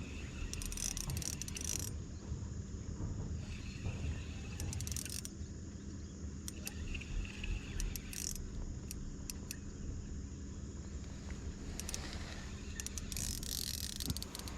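Outdoor river ambience: insects buzzing in short high-pitched spells every few seconds over a steady low hum.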